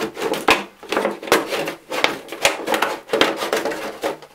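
Scissors cutting through the wall of an HDPE plastic milk jug: a run of crisp snips and crackles of the stiff plastic, about two to three a second.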